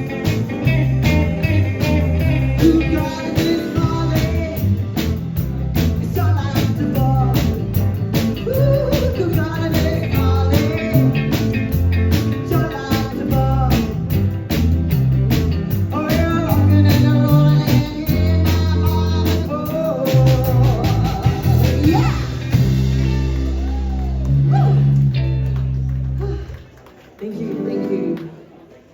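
Live rock and roll band with a singer, electric guitar, bass and drums playing up-tempo. The drumming stops about two-thirds of the way in and the song ends on a long held chord, followed by one last short chord.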